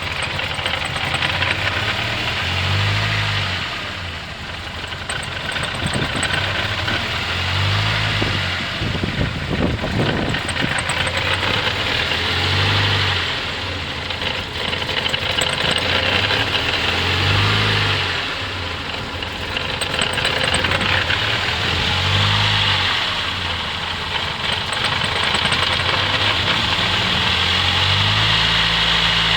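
Mercedes 200TE engine idling roughly, its speed rising and falling every four to five seconds, with a clattering noise: the rough, hunting idle that the owner says sometimes stalls the car when put into gear.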